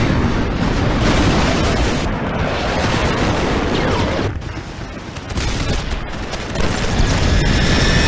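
Dramatised battle sound effects: dense anti-aircraft gunfire and booms mixed with the noise of a low-flying jet attack aircraft. They ease about four seconds in and build again, with a high whine near the end.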